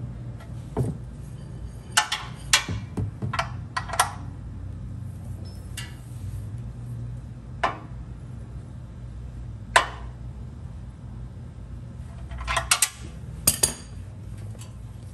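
Ratchet and socket wrench clicking and clinking against the Toyota Tundra's oil-pan drain plug as the plug is screwed back in and tightened: scattered sharp metal clinks in two bunches, over a steady low hum.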